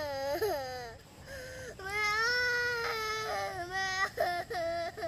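A young girl crying: a falling wail at the start, a long drawn-out wail in the middle, then short broken sobbing cries near the end.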